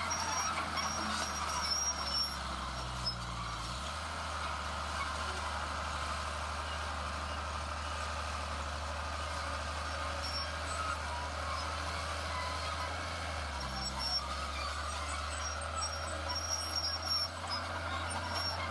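Diesel engine of heavy earthmoving machinery running steadily, its note shifting about 4 seconds in and again about 13 seconds in as the load changes. Short repeated high beeps sound near the start and again near the end, typical of a machine's reversing alarm.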